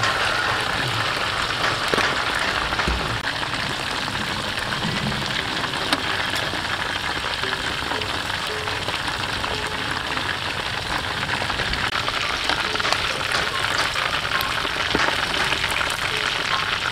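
Hot oil sizzling steadily around breaded chicken drumsticks deep-frying in a metal pan, with many small crackles.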